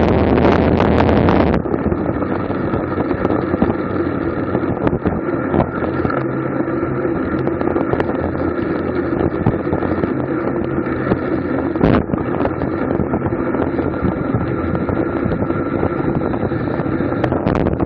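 Wind rushing over a bicycle-mounted camera's microphone while riding at racing speed: a steady, loud rush. It is stronger for the first second and a half, and a single brief sharp knock comes about twelve seconds in.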